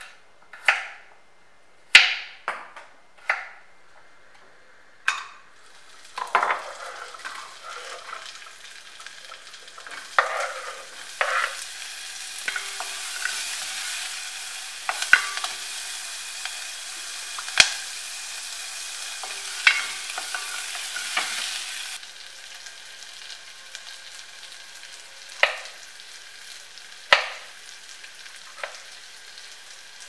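A knife chopping on a wooden cutting board in a few sharp knocks, then onions sizzling in hot oil in an enamelled pot from about six seconds in, with a spatula stirring and tapping against the pot. The sizzle drops off about two-thirds of the way through, and a few more knife knocks on the board follow near the end.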